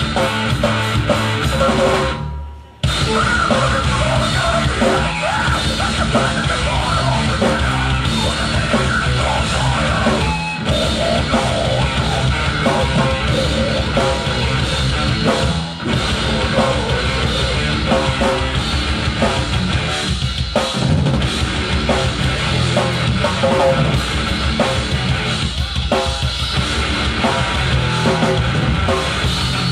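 Live loud rock or metal band music with the drum kit prominent. About two seconds in the sound fades out briefly, then cuts back in abruptly.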